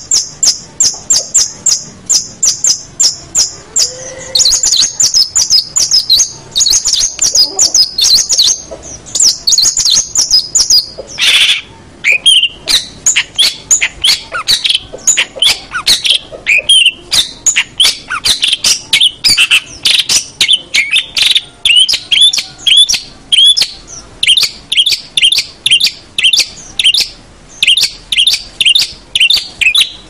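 Long-tailed shrike (cendet) singing a rapid chattering song of sharp, high notes repeated about three to four times a second. About a third of the way in it breaks off briefly with one harsher note, then carries on in lower, more varied notes.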